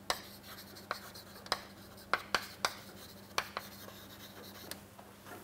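Chalk writing on a chalkboard: a string of irregular sharp taps and short scratches as words are chalked onto the board.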